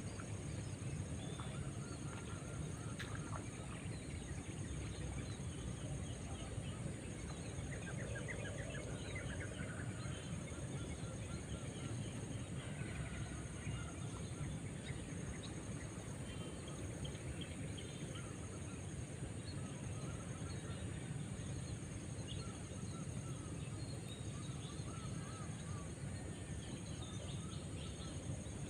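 Outdoor ambience: many short bird chirps and calls scattered throughout, over a steady high-pitched drone and a steady low rumble.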